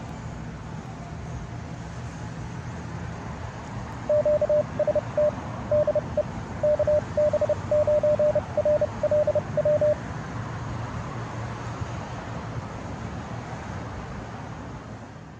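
Morse code sent as a single steady beep keyed in dots and dashes, starting about four seconds in and lasting about six seconds, over a steady hiss of radio static with a low hum.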